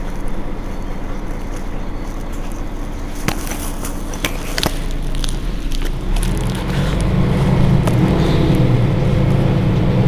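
Mercedes-Benz Citaro G C2 articulated bus's engine idling, growing louder from about six seconds in. A few sharp clicks come near the middle.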